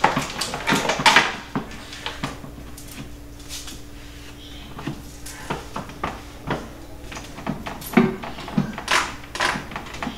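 Irregular knocks and clunks of small kitchen appliances, a pressure cooker and an air fryer, being shifted and set down on a wooden shelf, loudest near the start and again about nine seconds in.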